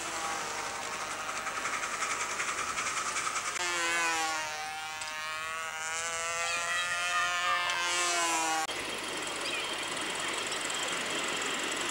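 Miniature ride-on live-steam locomotives running, the exhaust beating in quick regular pulses. About a third of the way in the sound changes abruptly to a humming tone with overtones that sags and then rises in pitch, and it changes abruptly again about two-thirds of the way in.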